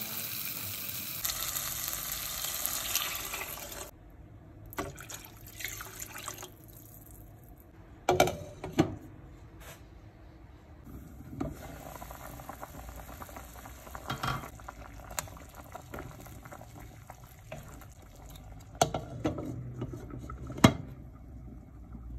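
Liquid being poured into a hot cooking pot, hissing loudly for the first few seconds, then going quieter with several sharp knocks of a utensil against the pot.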